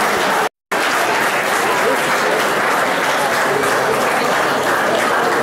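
Audience applauding steadily in a hall, broken by a brief dropout to silence about half a second in.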